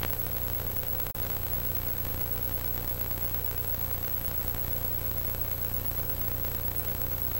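Steady hiss with a low hum and a faint high whine: the noise floor of an analog videotape with no programme sound on it, with a brief dropout about a second in.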